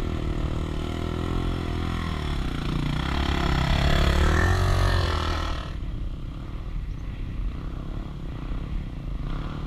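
A dirt bike riding past close by, its engine note climbing and bending, loudest about four to five seconds in, then falling away suddenly. A motorcycle engine keeps idling low underneath.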